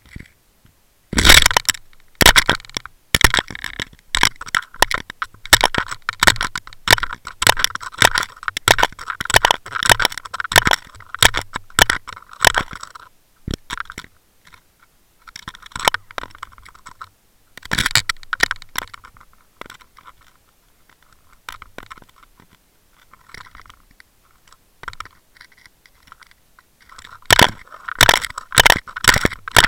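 Underwater recording full of dense, irregular clicking and crackling that comes in spells, quieter for a few seconds in the later part, then busy again near the end.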